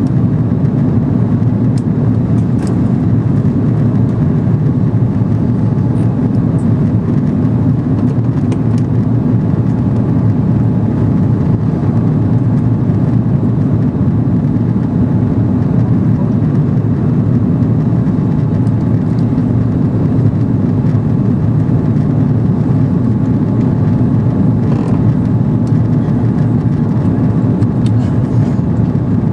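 Airbus A330 airliner in flight, a steady low rumble of engines and airflow heard inside the cabin, unchanging throughout.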